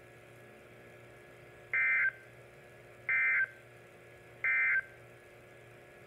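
Three short, buzzy data bursts about 1.4 s apart from a Midland NOAA weather alert radio's speaker: the SAME end-of-message code that closes a NOAA Weather Radio warning broadcast.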